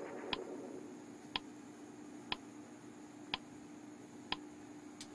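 Quiz countdown-timer tick sound effect: five short ticks about a second apart, marking the seconds counting down from five to one, over a faint steady hum.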